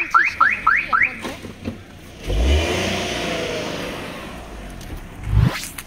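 Car alarm chirping in quick rising sweeps, about four a second, then about two seconds in the car's engine starts with a rev and settles, fading away. Near the end comes a low thump and a rising whoosh.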